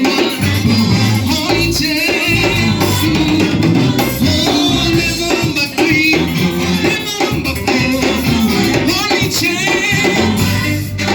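Live worship music: singers with a band playing a steady beat and bass line, as the congregation worships.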